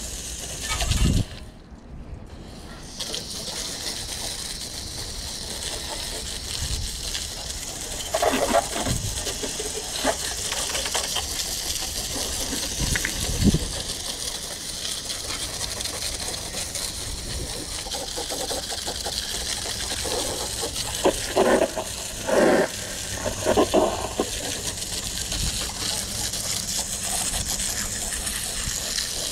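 Garden hose spray nozzle jetting water onto a mower and the wet pavement: a steady hiss that stops briefly near the start, with louder splashing gushes now and then as the stream strikes the machine.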